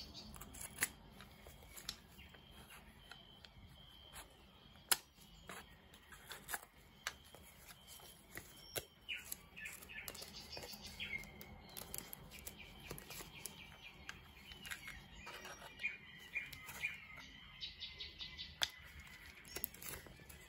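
Quiet handling of a cardboard mailer, scissors and plastic banknote sleeves: scattered light clicks and taps with soft rustling. Faint high chirping sounds in the background, more of them in the second half.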